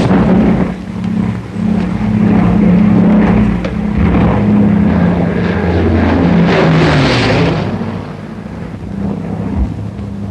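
Propeller aircraft engines droning with a steady, layered hum. About two-thirds of the way through, one engine's pitch drops as a rushing noise swells and fades, as of a plane passing close.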